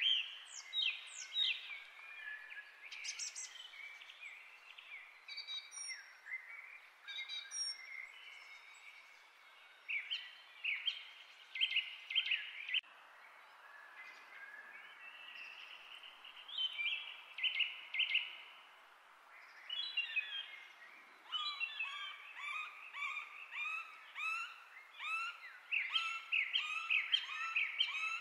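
Birds chirping and singing, many short calls over a steady outdoor hiss; the calls come thicker and faster in the last third.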